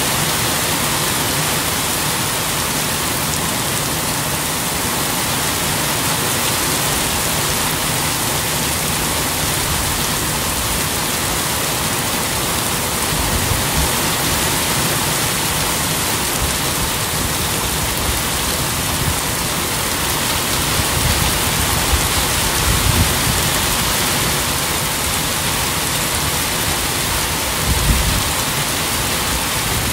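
Steady rain pouring down, an even close hiss of drops, with a few brief low thumps around the middle and one near the end.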